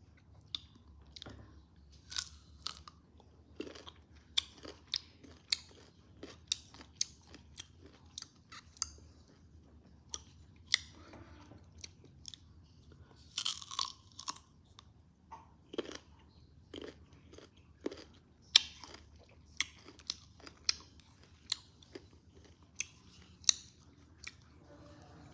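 Close-up crunchy chewing and biting into crisp food, with sharp crunches about once a second and a denser run of crackling about halfway through.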